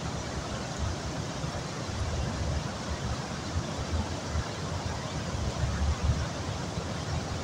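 Muddy river in flood, the fast, high water rushing past bridge piers in a steady roar with an uneven low rumble underneath.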